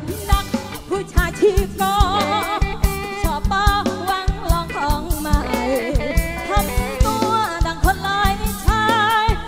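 A woman singing with a wavering vibrato into a microphone over an amplified live band, with a drum kit keeping a steady beat.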